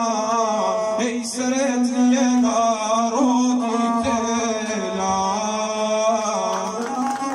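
Gusle, the single-string bowed folk fiddle, holding a steady droning tone under a man's chanted, declaimed singing in the guslar epic style.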